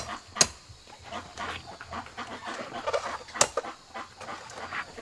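Chickens clucking in a poultry yard, with two sharp clicks or knocks, about half a second and about three and a half seconds in.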